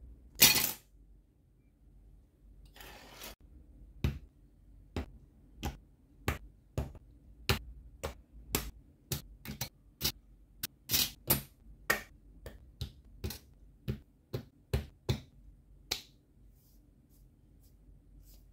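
Sharp plastic clicks, one or two a second, as the polarized clear parts of an HG 1/144 Shin Burning Gundam kit are cut from the runner and snapped together. A louder handling rustle opens the sequence, with another about three seconds in.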